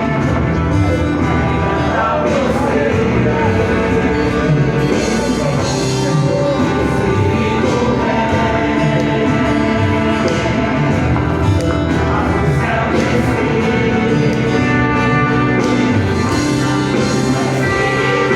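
Singers performing a Christmas cantata with band accompaniment.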